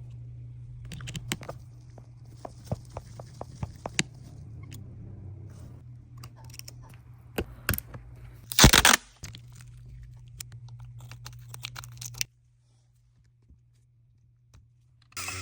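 Phone-repair bench sounds: small sharp clicks and taps of tools working on an iPhone over a steady low equipment hum, with one loud harsh scraping or cracking burst about nine seconds in. The sound cuts off abruptly about three seconds before the end.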